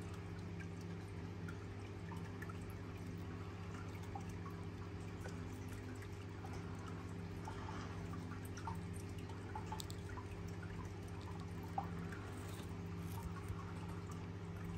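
A steady low hum with several pitches under faint, irregular small ticks and drips.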